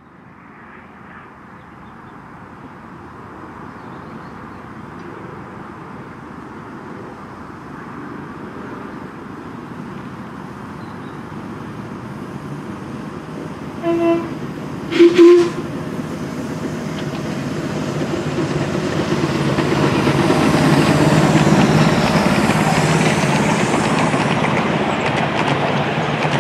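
Miniature railway train, double-headed by a petrol-hydraulic locomotive and a 2-4-2 steam locomotive, approaching and running past, growing steadily louder until the locomotives pass and the coaches roll by. About halfway through, two short toots, the second louder.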